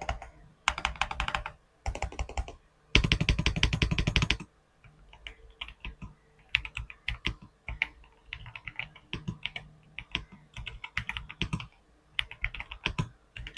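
Typing sound test on a Menel Nia87 gasket-mount TKL mechanical keyboard with PBT double-shot keycaps. Fast flurries of keystrokes come in the first few seconds, then slower, separate key presses.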